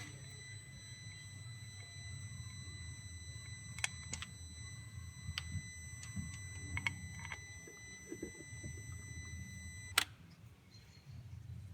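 A steady high electronic tone, like a continuous beep, over a low hum. Several light clicks come through it, and a sharp click about ten seconds in cuts the tone off.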